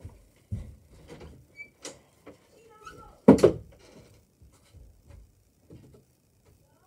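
A loud knock, two hits in quick succession, about three seconds in, amid fainter scattered thumps and bumps.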